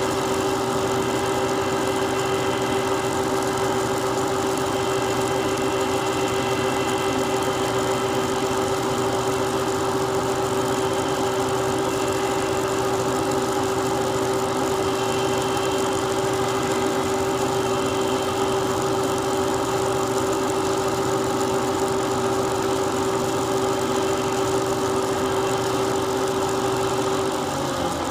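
Knee mill's spindle running at steady speed with a constant mid-pitched tone while a tiny #76 drill bit is hand-fed through a sensitive drill chuck. Near the end the pitch falls as the spindle is switched off and winds down.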